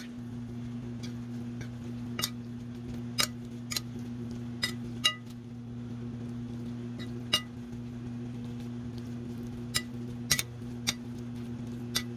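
Metal fork and spoon clinking against a ceramic bowl while saucy instant noodles are stirred and mixed: about a dozen sharp, irregular clinks, each with a short ring. A steady low hum runs underneath.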